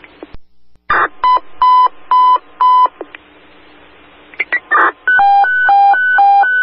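Two-way radio alert tones over a fire dispatch channel: four short beeps about half a second apart, then a steady alternating high-low tone from about five seconds in. This is the evacuation tone sent when an interior crew is ordered out of a burning building.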